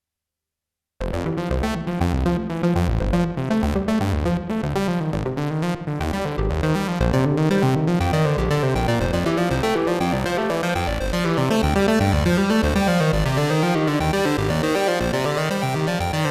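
Arturia MatrixBrute analog synthesizer playing a custom patch: quick rising and falling note patterns over a pulsing bass line. It starts suddenly about a second in, after silence.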